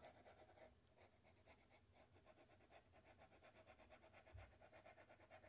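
Near silence: faint background noise only.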